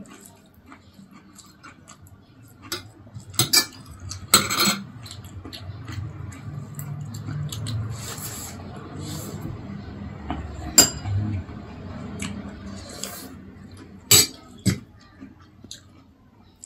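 Mealtime sounds: a metal spoon clinking sharply against a ceramic plate several times, with low eating noises between the clinks.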